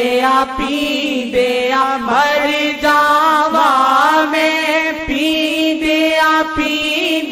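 Unaccompanied devotional singing of a Punjabi naat: long, wavering melismatic notes held without clear words over a steady sustained tone.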